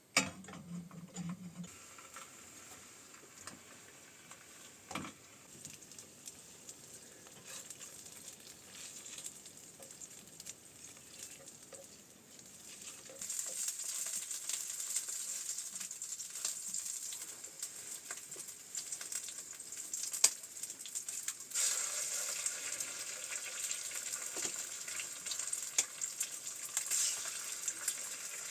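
Steady sizzling hiss with many small crackles, growing louder about 13 seconds in and again about 21 seconds in.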